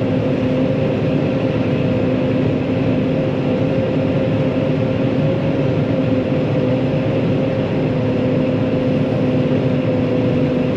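John Deere 9500 combine running steadily under load while harvesting corn, heard from the cab as an even drone with a steady hum.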